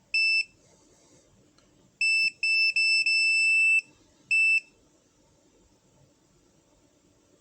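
An electronic beeper sounding one high-pitched tone: a short beep, then about two seconds later a quick run of short beeps running into a longer one of nearly a second, and one more short beep about half a second after that.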